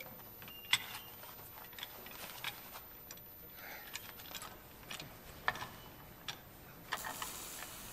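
Scattered metallic clicks and ticks of a machine's gears and levers being worked by hand, coming at irregular intervals, the sharpest about a second in and again past the middle. A brief hissing rattle near the end.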